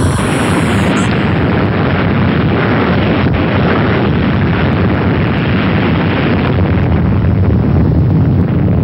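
Loud, steady roar of a large explosion: an unbroken wash of blast noise with no separate bangs.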